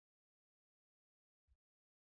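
Near silence: a muted soundtrack, with one faint low click about one and a half seconds in.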